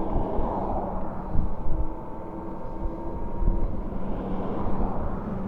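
Riding noise from an electric bike moving alongside highway traffic: a steady low rumble of wind and road noise with faint steady hums, as motor vehicles pass close by.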